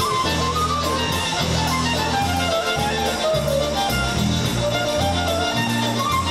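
Live polka band playing a dance tune: a melody line over a bass line that changes note about every half second, with a steady drum beat.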